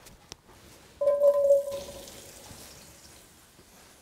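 Chopped vegetables tipped into a hot, oiled cast-iron Dutch oven about a second in: the pot rings briefly and the oil sizzles, the sizzle fading over the next couple of seconds.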